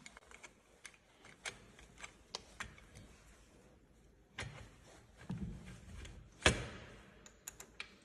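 Light metal clicks and knocks from a bicycle handlebar stem being fitted and an Allen key being worked in its top bolt. Scattered ticks are broken by a heavier knock about halfway through and the loudest knock a little later, then a quick flurry of ticks near the end.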